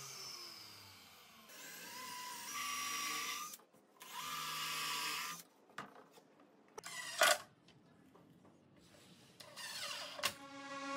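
Mitre saw blade spinning down, then a cordless drill driving screws into wood in two runs of about two seconds each, followed by a couple of short bursts.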